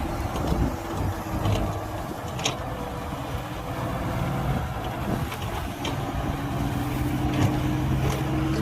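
Heavy diesel earthmoving machinery running steadily, with a few short metallic clanks; the engine note grows stronger in the second half.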